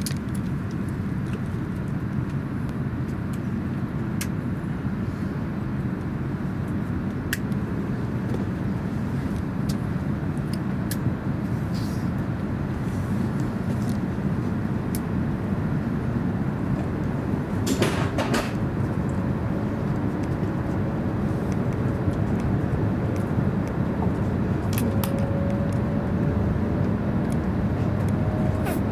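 Cabin noise of an E5 series Shinkansen pulling out of a station: a steady low rumble of wheels and running gear with scattered clicks, and a faint whine rising slowly in pitch in the second half as the train gathers speed. A brief louder clatter about two thirds of the way through.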